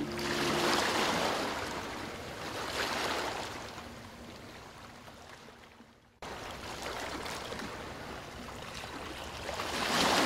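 A rushing noise with no clear pitch that swells and fades like waves. It dies away, cuts off abruptly about six seconds in, then swells again to its loudest near the end.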